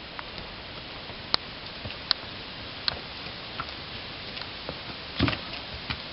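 A walking horse's hooves knocking now and then on leaf-covered ground and a low step, single sharp knocks about every second, with a louder double knock about five seconds in as it steps down. A steady hiss runs underneath.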